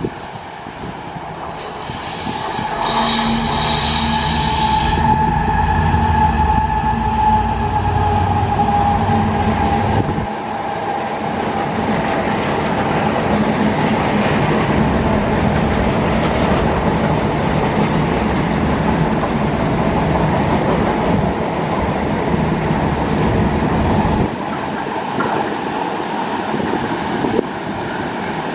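A Freightliner Class 70 diesel locomotive passes at speed, its engine growing louder over the first few seconds, with a high ringing squeal for about two seconds a few seconds in. A long string of tank wagons follows, rolling past with a steady rumble and clatter of wheels on rail.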